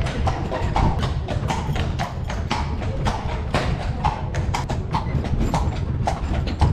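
A carriage horse's hooves clip-clopping on the road at a walk: an even beat of about three or four hoof strikes a second over a low rumble.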